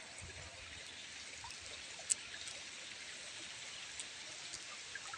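Shallow irrigation-channel water flowing and trickling past a boulder, a steady soft rush. One sharp click about two seconds in.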